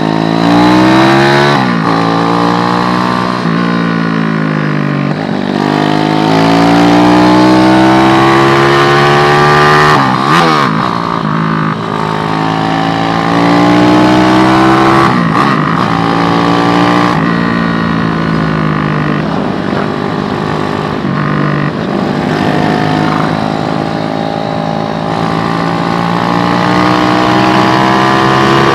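SND ZS190 single-cylinder motorcycle engine (a Daytona Anima replica) accelerating through the gears: the revs climb and drop back at each shift, several times in the first half, then hold steadier at cruising speed with small swells.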